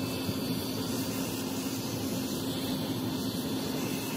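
Gas burner of a homemade metal melting furnace running steadily: an even rushing roar with a low steady hum under it as the furnace heats up.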